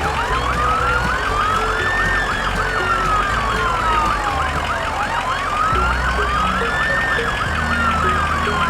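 Emergency vehicle sirens: a slow wail rising and falling about every five seconds, with a faster warbling siren over it.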